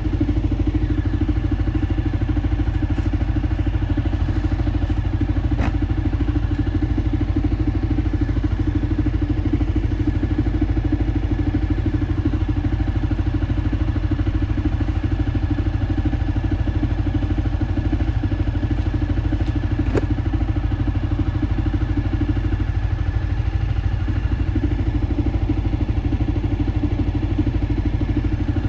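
Honda CBR300R's single-cylinder engine running at a steady speed under a heavy, unchanging low rumble. Two brief sharp clicks cut through it, about six seconds in and again about twenty seconds in.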